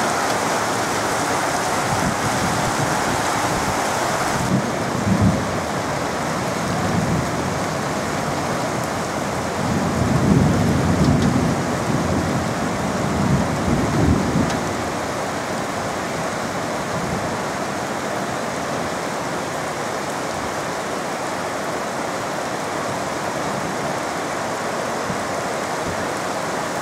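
Heavy tropical rain pouring down steadily, with thunder rumbling low about five seconds in and again, longer and louder, from about ten to fourteen seconds in.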